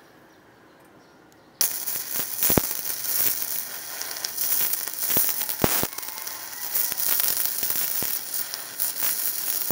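Gasless flux-core MIG welding arc crackling steadily on steel plate, starting suddenly about a second and a half in, with frequent sharp pops. The welder is an Ecomix machine with its voltage turned down.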